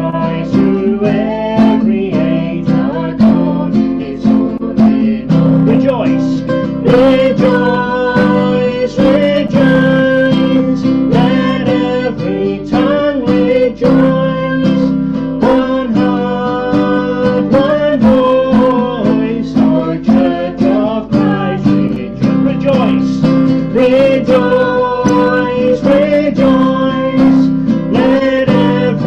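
Acoustic guitar strummed steadily in chords, accompanying a man and a woman singing a worship song together.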